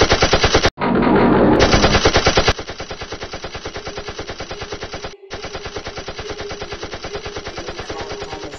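Machine-gun fire sound effect: rapid bursts of about ten shots a second. It is loud for the first two and a half seconds, then quieter, with brief breaks just under a second in and about five seconds in.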